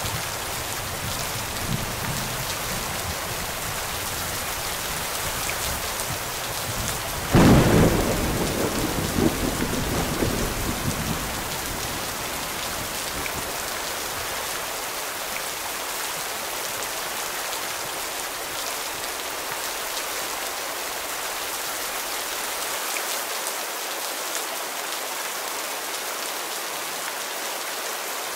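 Steady rain falling, with a sudden clap of thunder about seven seconds in that rumbles away over the next few seconds.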